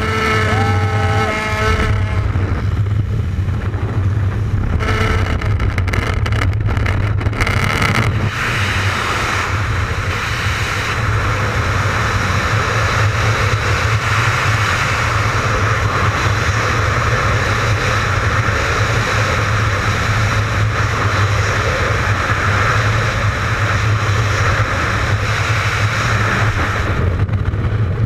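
Strong wind rushing over the camera microphone during skydiving freefall, a loud steady roar and rumble. In the first couple of seconds the jump plane's propeller engine is heard as the jumper leaves the aircraft.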